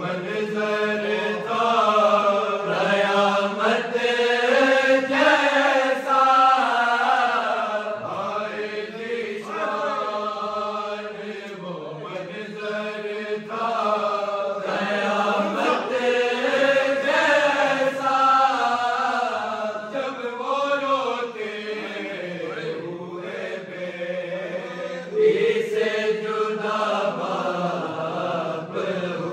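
Men chanting a Shia noha, a mournful Urdu elegy for Imam Ali's martyrdom, in unaccompanied voices with a melodic, rising and falling line.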